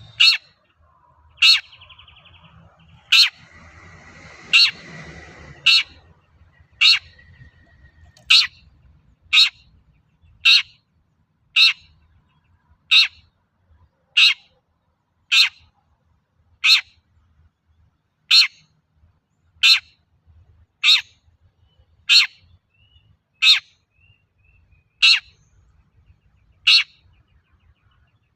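Long-tailed shrike (cendet) giving a short, sharp call over and over, about once every 1.2 seconds. A fainter hiss and a thin steady whistle sit under the calls for a few seconds early on.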